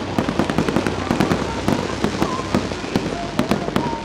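Fireworks barrage: aerial shells and comets bursting in quick succession, several bangs a second in an unbroken string.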